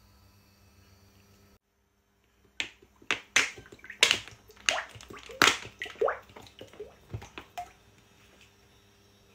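Cooking oil glugging out of a plastic bottle and splashing into a stainless steel wok: a run of irregular glugs and splashes lasting about five seconds, starting a couple of seconds in.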